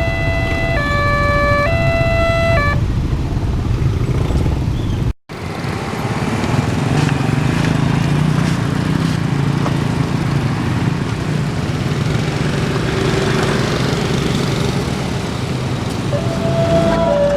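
Railway level-crossing warning siren sounding its two-tone alternating signal, which warns of an approaching train, stopping about three seconds in. After a sudden break there is a steady mechanical rumble, then the two-tone siren starts again near the end.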